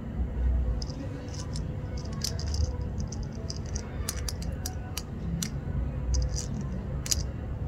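Scattered, irregular light scratches and clicks of a kitten pawing and biting at a fabric ribbon held in a person's hand, over a steady low rumble.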